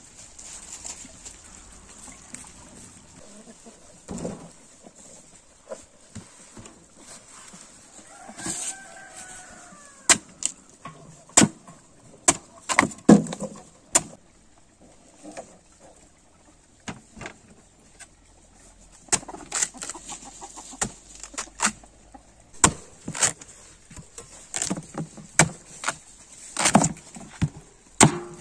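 A chicken calls once, about eight seconds in. Around it are many sharp clicks and knocks, scattered irregularly and more frequent in the second half.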